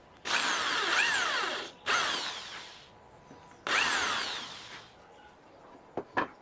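Power drill running in three short bursts, its motor pitch sweeping up and down with the trigger. Two short sharp clicks come near the end.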